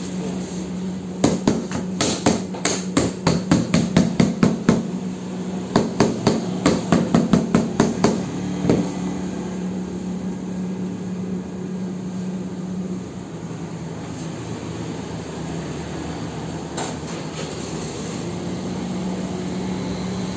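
Hammer strikes in two quick runs of about ten to a dozen knocks each, roughly three a second, with a last knock near the nine-second mark, over a steady low machine hum.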